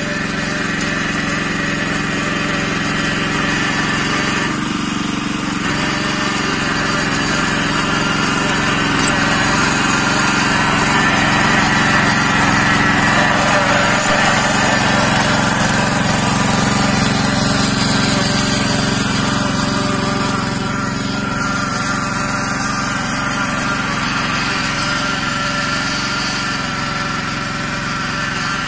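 Yağmur YET 300 two-wheel walking tractor (patpat) engine running steadily at working speed, slightly louder around the middle.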